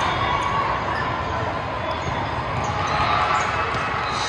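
Steady din of a large hall full of volleyball courts in play: a murmur of many voices with volleyballs bouncing and being hit.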